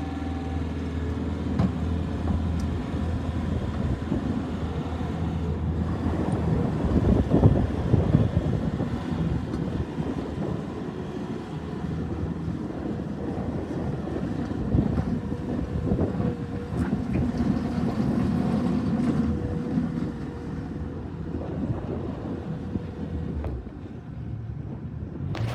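Bobcat T550 skid steer's diesel engine running. It swells in level about seven to eight seconds in, then eases off over the last few seconds.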